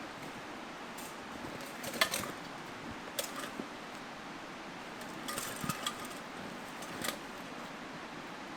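Small metal items clinking and rattling a handful of times, over the steady rush of a mountain stream.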